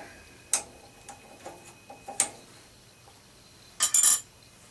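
Metal tooling being handled while taking parts out of a lathe setup: a few sharp clicks and knocks, then a louder quick cluster of clinks near the end.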